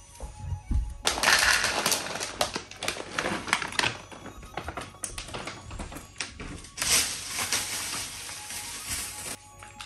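Two cats eating from plastic bowls on a tray, a rapid, close crackle of crunching and clicking that swells about a second in and again near the end.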